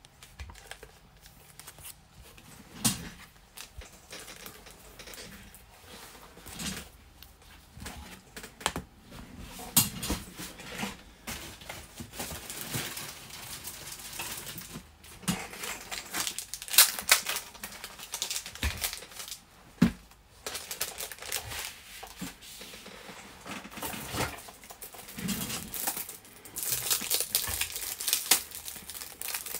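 Trading cards and plastic card sleeves being handled on a tabletop: scattered sharp clicks and taps with plastic crinkling, getting busier in the second half.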